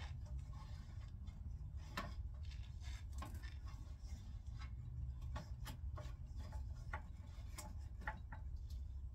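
Scattered light clicks and taps of hand tools and metal parts being handled while dismantling a bandsaw, irregular and roughly a second apart, over a low steady hum.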